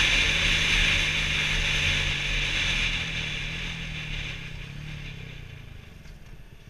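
Wind rushing past a helmet-mounted camera over a sport motorcycle's engine, both fading steadily as the bike slows toward stopped traffic. Near the end only a low, evenly pulsing engine note is left.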